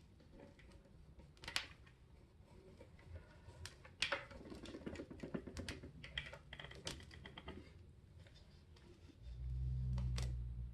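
Scattered plastic clicks and light rattling as a cyclonic vacuum cleaner's dust bin is handled and opened to be emptied. The loudest click comes about four seconds in, followed by a few seconds of denser rattling. A low rumble starts over the last second or so.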